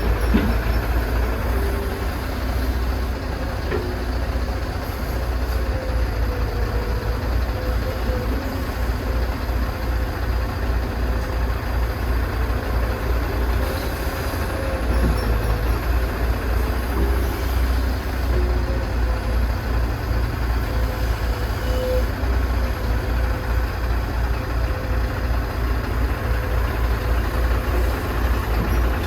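Heavy diesel earthmoving machinery, an excavator working with dump trucks, running steadily with a deep low rumble and a faint steady whine above it.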